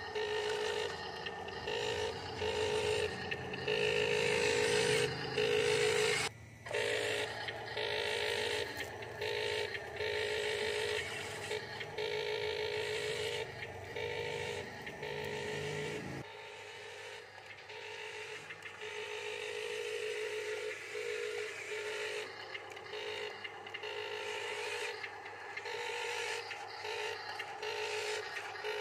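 Electric motors and gearboxes of radio-controlled model construction vehicles whining in short on-off bursts as they are driven and worked, with low rumbling that stops suddenly partway through.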